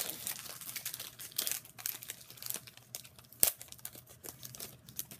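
Foil wrapper of a hockey card pack being torn open and crinkled by hand: a run of crackles and rustles, with one sharp snap about three and a half seconds in.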